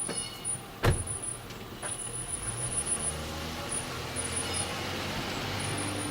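A sharp thump about a second in, then a car's engine and tyre noise that builds up and holds steady.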